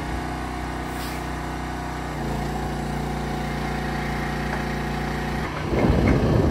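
Trailer-mounted DINO 160XT boom lift's power unit running steadily, its pitch stepping up about two seconds in as the boom raises the work basket. Near the end a louder rough noise takes over.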